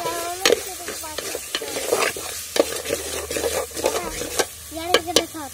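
A metal spatula stirs and scrapes onion-and-spice masala with chicken frying in a metal pot. The oil sizzles steadily under a series of sharp scrape-and-knock strokes against the pot, some giving a short squeak.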